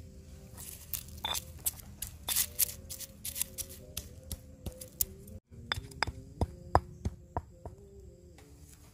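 Soft background music under a run of sharp, irregular clinks and taps of hard objects, as of glass or kitchenware knocking together. The sound cuts out briefly about five and a half seconds in.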